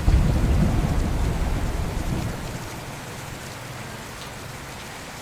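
Steady rain with a roll of thunder that breaks at the start and rumbles away over about three seconds.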